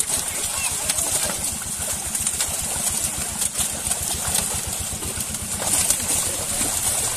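Fish thrashing and splashing in a crowded net in shallow pond water, in a steady hiss with sharper splashes now and then. Under it runs a steady, rapid low throb like a small engine running.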